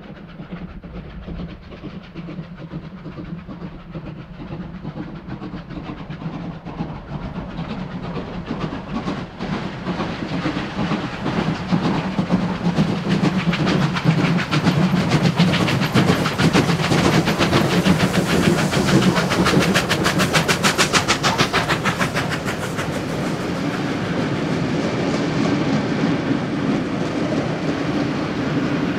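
Three Victorian Railways steam locomotives, D³ 639, A² 986 and R761, approach and pass at speed as a triple-header. Their rapid exhaust chuffing grows louder and is loudest in the middle, then gives way to a steadier rumble and clatter of passenger carriages rolling by near the end.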